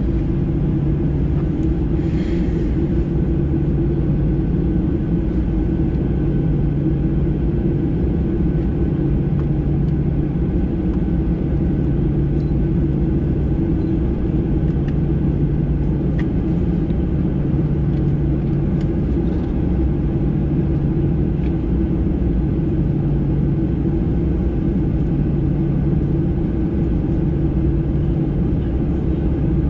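A Boeing 737-800's CFM56-7B engines at low taxi thrust, heard inside the cabin as a steady rumble with a low hum.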